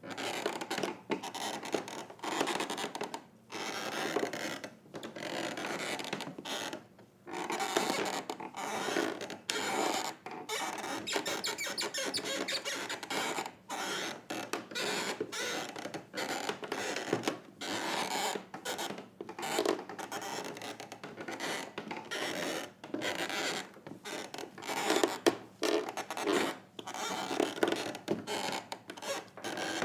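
An old wooden floor creaking and groaning under weight, a long run of irregular, drawn-out creaks with short pauses between them. A few creaks in the second half come out louder.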